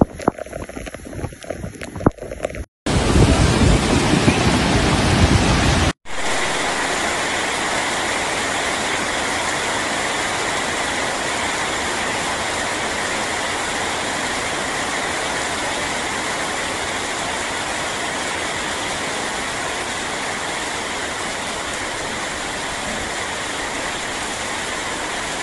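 Cyclone Shaheen's wind and rain: gusty windblown rain, then about three seconds of loud wind buffeting the microphone, then a steady heavy downpour hissing on the ground for the rest of the time.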